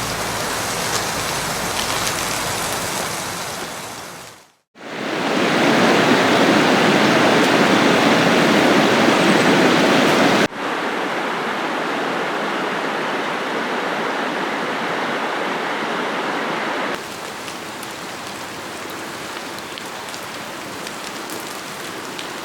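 Steady rushing of a mountain stream and falling rain, heard in several cuts: it fades out about four seconds in, comes back louder, then steps down in level twice.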